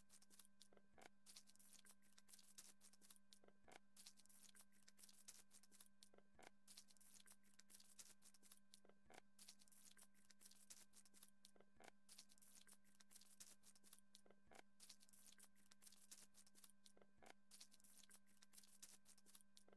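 Near silence: a faint steady electrical hum with faint crackling ticks, and a soft click repeating about every two and a half seconds.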